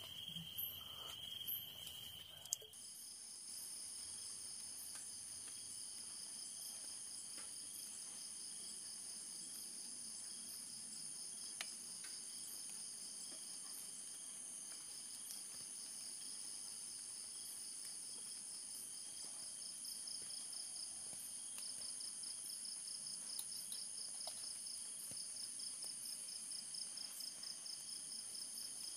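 Steady chorus of insects shrilling in several high, unbroken lines, one of them with a fast even pulsing. The sound changes abruptly about three seconds in, as at an edit, then holds steady.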